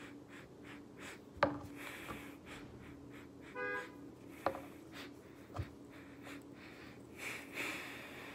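Faint handling of plastic lip balm sticks: a few separate light clicks and knocks as caps are worked and the sticks are set on a wooden table, with a short pitched tone about three and a half seconds in and a breathy sniff-like hiss near the end.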